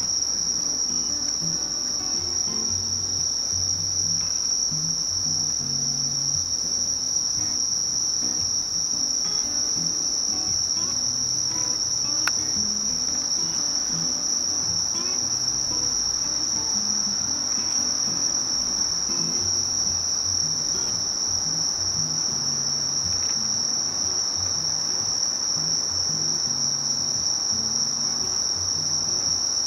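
Singing insects giving one steady, unbroken high-pitched trill.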